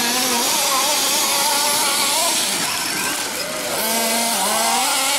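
Several radio-controlled off-road cars' small two-stroke engines running together, revving up and down as they race, their overlapping buzzing pitches rising and falling.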